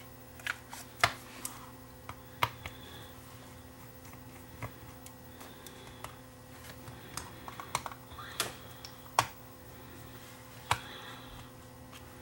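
Scattered small clicks and taps of a screwdriver and tiny screws against the metal back plate of a Sony Walkman WM10 cassette player as it is unscrewed and handled, with a few sharper clicks among them. A faint steady hum runs underneath.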